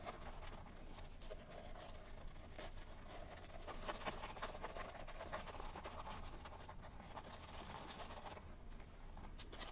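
Faint scratching and rubbing as a rubber 1/10-scale crawler tire is squeezed and twisted by hand to work a foam insert into place inside it.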